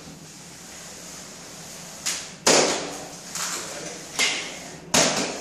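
Trowel spreading adhesive across a sheet of FRP panel: after about two seconds, four or five quick scraping strokes, each starting sharply and fading away.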